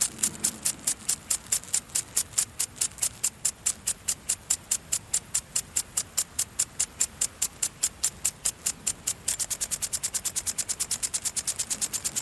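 Garden impact sprinkler spraying in regular ticking spurts of water, about five a second. About nine seconds in, the spurts turn roughly twice as fast, like the sprinkler's quick return sweep.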